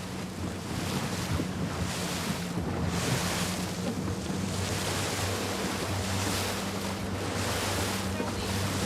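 A boat's motor runs with a steady low drone while sea water rushes and splashes alongside, with wind buffeting the microphone.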